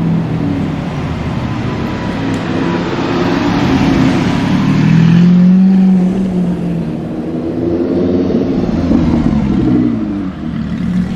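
Audi R8 V10 Plus's V10 engine through a Capristo aftermarket exhaust, revving and accelerating. Its pitch rises and falls, and it is loudest about five to six seconds in.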